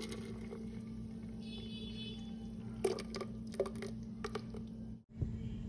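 Thick blended corn broth pouring from a blender jug into a pot of cooked hominy, a faint liquid sound, with a few light knocks about three seconds in over a steady low hum.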